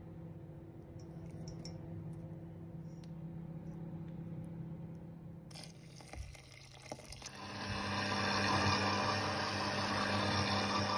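Stand mixer motor running with its flat beater working flour and milk into dough. It gets much louder and steadier from about seven seconds in. Milk is poured into the flour just before that. A low steady hum fills the first half.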